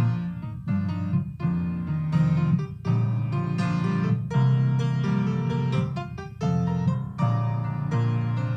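Piano playing a slow tune in held notes and chords.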